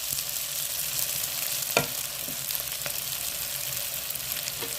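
Omena in tomato sauce sizzling steadily in a pan on low heat, with a few sharp clicks.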